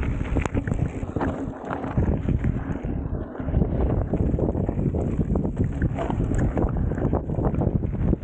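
Mountain bike ridden at speed on a dirt trail: wind buffeting the microphone over the rumble of tyres on dirt, with many small clicks and rattles from the bike.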